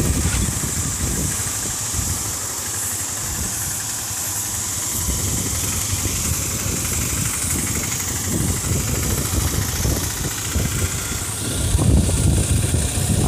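Motorcycle coasting downhill with its engine switched off: wind buffeting the microphone and tyre rumble on the road, with a vehicle engine running nearby.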